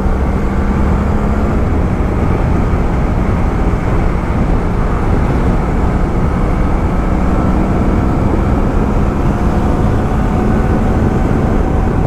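BMW F800GS parallel-twin engine running steadily at a constant road speed, with a dense rush of wind and road noise.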